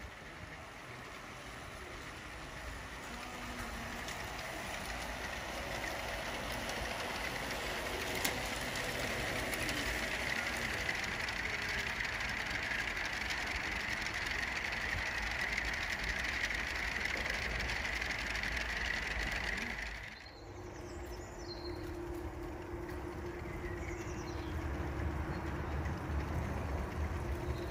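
G-scale model train running on outdoor garden track, its wheels and motors growing steadily louder as it draws near. About twenty seconds in the sound cuts to another stretch of steadier running with a low held hum.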